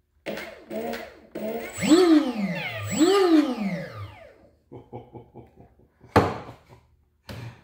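Water-cooled brushless motor of an electric RC hydroplane given a few short throttle blips, then revved up and back down twice, a whine that rises and falls in pitch. Near the end it stutters in a quick run of pulses, followed by two sharp knocks.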